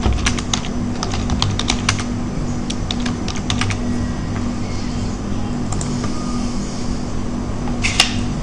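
Keys clicking on a computer keyboard in irregular runs over the first half, then a sharper cluster of clicks near the end, over a steady low hum.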